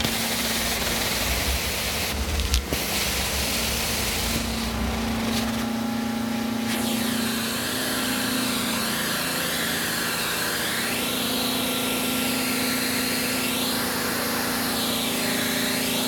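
Hot-water carpet extractor (steam cleaner) running, its wand sucking air and water up through the carpet with a steady hum and hiss. In the second half a whistling tone rises and falls as the wand is worked back and forth.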